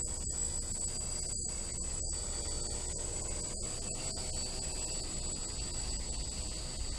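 Quadcopter in low flight, heard through its onboard camera: a steady high whine holding two fixed tones over a low rumble, broken by brief dropouts.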